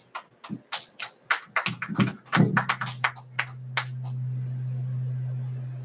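A handheld microphone being handled: a run of irregular sharp taps and knocks for about four seconds. From about halfway a steady low electrical hum comes up through the sound system, swells, and fades near the end.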